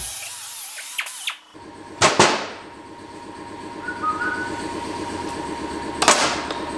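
Clatter of tools being set down on a workbench, a sharp double knock about two seconds in and another knock near the end, over a low steady hum.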